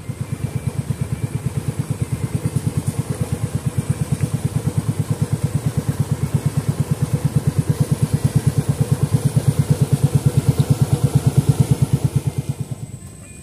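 Small boat's engine running as it passes close by, an even, rapid pulse that grows louder and then fades away near the end.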